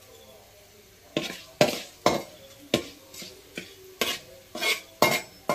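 Flat metal spatula scraping and knocking against a metal kadai as fenugreek seeds and asafoetida are stirred in hot coconut oil: about nine sharp scrapes, starting about a second in.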